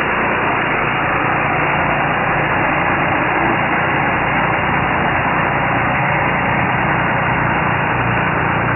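Massey Ferguson 235 tractor engine idling steadily.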